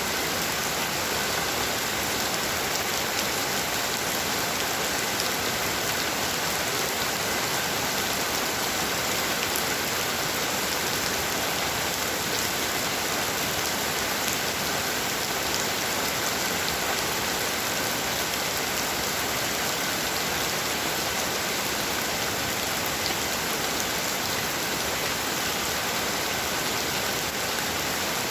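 Heavy rain falling steadily, a dense even hiss of drops with fine individual patters on a hard surface.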